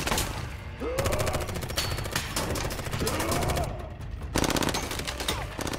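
Automatic rifle fire in long, rapid bursts, with a short break a little before four seconds in before the firing resumes.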